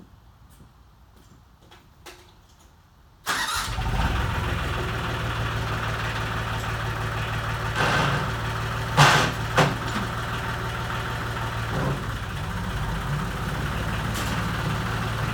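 Quiet with a few faint clicks, then about three seconds in a turbocharged Ford 1720 tractor's diesel engine comes in abruptly and runs steadily, turning a Generac PTO generator under load. A few sharp knocks sound around the middle, the loudest about nine seconds in.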